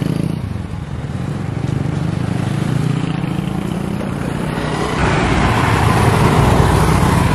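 Road traffic of motor scooters and motorcycles riding past, a steady engine drone that steps up and gets louder about five seconds in.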